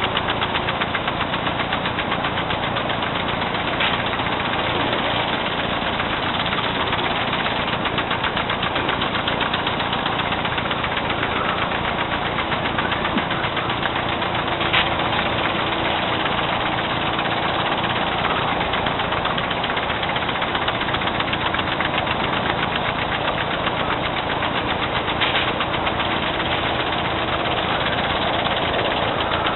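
Loud lawn sprinklers running: a fast, steady ticking over a hiss that never lets up.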